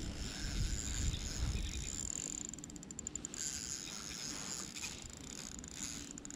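Spinning reel being cranked during a lure retrieve, a fine rapid clicking whir that is clearest about two and a half seconds in. Wind rumbles on the microphone over the first two seconds.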